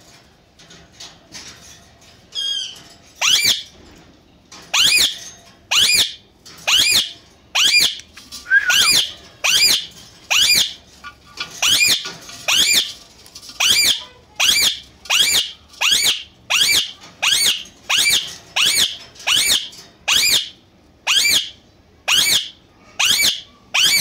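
Indian ringneck parakeet giving a long run of loud, high-pitched screeching calls, about one a second, some twenty in all after a short warbled call near the start.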